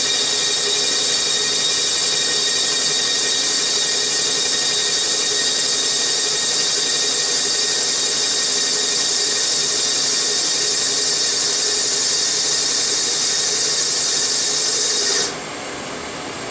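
RMC V40 CNC mill boring a sleeved Excelsior motorcycle cylinder, its spindle running steadily with a high whine and hiss. About fifteen seconds in, the whine cuts off sharply as the spindle stops, leaving a quieter steady machine hum.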